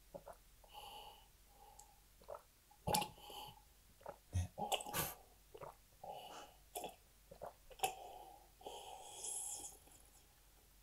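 A person eating at close range: soft mouth noises, sniffs and breaths, broken by a few small sharp clicks.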